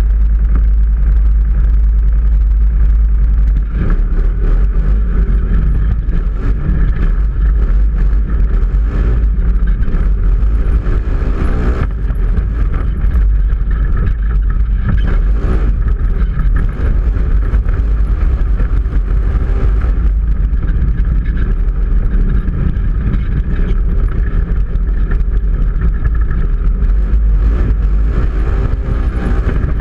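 Polaris RZR XP 900 side-by-side running at speed, its engine and tyres heard from an onboard camera with heavy, continuous wind rumble on the microphone.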